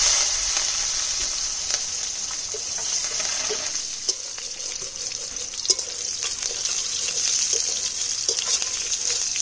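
Slit green chillies and raw mango pieces sizzling in hot oil in a kadai, with a tempering of dried red chillies and mustard seeds, while being stirred; scraping and light taps sound against the pan. The sizzle is loudest right at the start, just after they go in, then settles to a steady hiss.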